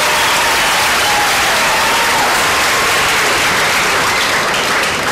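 Audience applauding, a dense steady clatter of many hands, with a few voices calling out over it; it eases slightly near the end.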